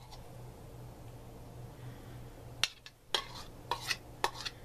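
A spoon clicking and scraping against a bowl as the last of the sauce is scraped out of it, with about four sharp knocks in the second half. A low steady hum runs underneath.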